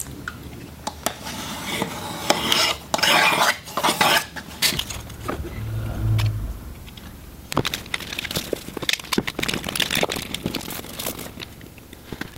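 Hands working a plastic camera bracket, cable and gaffer tape on the back of a mower seat: scattered clicks and knocks of plastic, with several short rasping stretches a couple of seconds in as tape is pulled off the roll.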